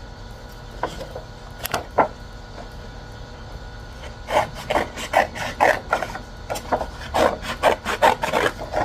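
Scissors cutting through mixed-media paper: a few separate snips, then from about four seconds in a quick run of short rasping cuts, three or four a second.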